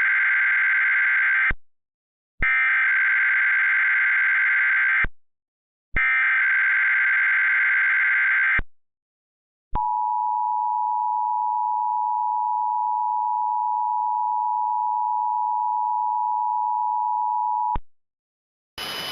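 Emergency Alert System SAME header: three bursts of rapid warbling digital data tones about a second apart, followed by the EAS two-tone attention signal held steadily for about eight seconds, announcing a Tornado Watch. A burst of noise cuts in at the very end.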